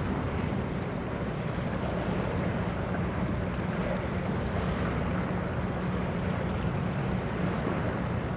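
Small coastal cargo ship passing close, its diesel engine giving a steady low drone under the rush of water from its bow wave.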